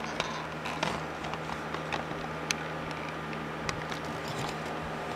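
Steady low electrical hum from the bench equipment, with a few light clicks and taps scattered through it, like things being handled.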